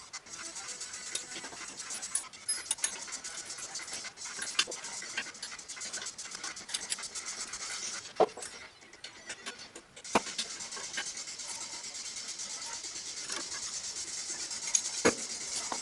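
Light clicks and knocks of hand work on engine parts over a steady hiss, which drops out for a second or two about halfway through.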